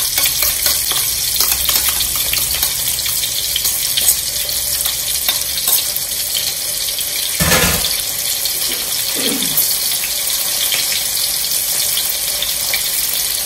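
Chopped onion and bell peppers frying in oil in a wok with tomato sauce just poured in: a steady sizzle. A single sharp knock about seven and a half seconds in.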